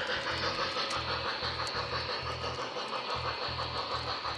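Rhythmic steam chuffing from the onboard Proto-Sound 3.0 sound system of an MTH Premier O-gauge Pennsylvania J1 2-10-4 model locomotive running along, over background music.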